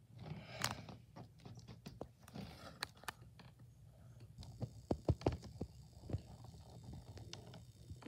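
Handling noise from a handheld camera: irregular clicks, knocks and rubbing, with a cluster of louder knocks about five seconds in, over a low hum.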